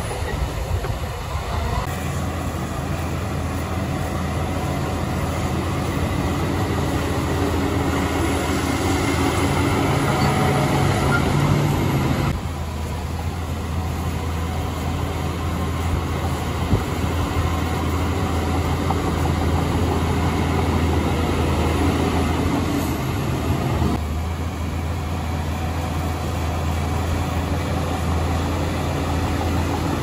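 Bulldozer diesel engine running steadily with heavy machinery noise. Its sound shifts about twelve seconds in and again around twenty-four seconds.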